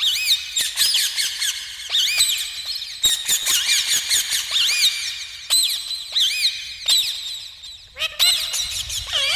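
Parrots giving a rapid stream of short, high, arching chirps that overlap one another without pause, as from several birds calling at once.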